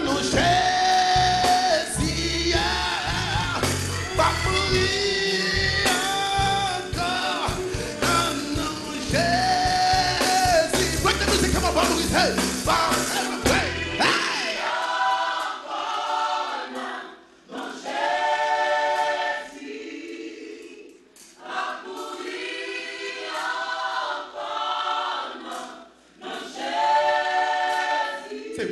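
Gospel vocal group singing in harmony over a band with bass and drums. About halfway through the instruments drop out and the voices carry on alone, in phrases with short pauses between them.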